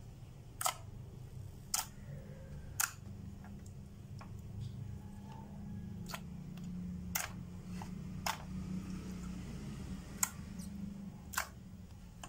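Fingers pressing and poking glossy slime, with trapped air popping out in sharp clicks, about eight of them at uneven intervals of roughly a second, over a low steady hum.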